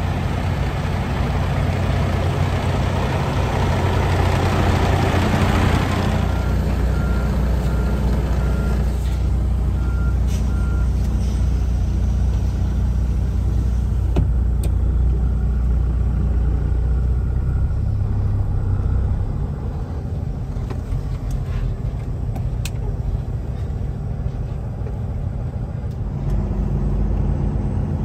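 Kenworth T680 semi-truck's diesel engine running, heard first beside the cab and then from inside it as the rig pulls slowly across a truck-stop lot. Its low drone eases off about two-thirds of the way through and picks up again near the end.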